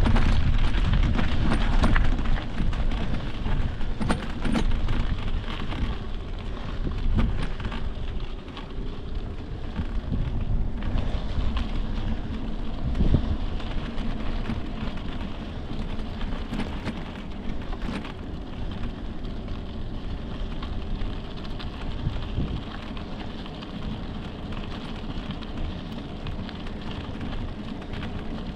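Riding noise from a mountain bike on a dirt trail: wind buffeting the microphone and tyres crunching over dirt and gravel, with small knocks and rattles from the bike. It is louder for the first several seconds and eases after about eight seconds.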